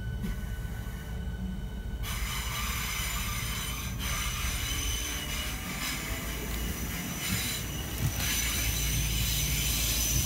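Class 465 Networker electric multiple unit heard from on board, running with a steady low rumble; about two seconds in, a high hissing squeal from the wheels on the rails sets in and continues, with thin high tones that grow stronger near the end.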